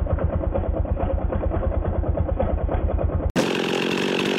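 Two-stroke chainsaw engine idling with a fast, even low pulsing. A little over three seconds in, it cuts abruptly to a chainsaw running faster with a steady higher whine.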